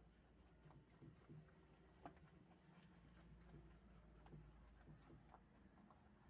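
Farm rabbits eating: faint, irregular little clicks and crunches of chewing over a low hum.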